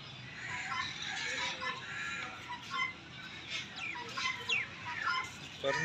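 Mixed bird calls from zoo aviaries: scattered short chirps and clucks, with a few quick falling whistles from about three and a half to four and a half seconds in.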